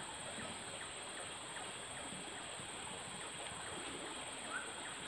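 Steady outdoor ambience of a flowing muddy river, an even rush of water with a steady high hum over it and a few faint short chirps.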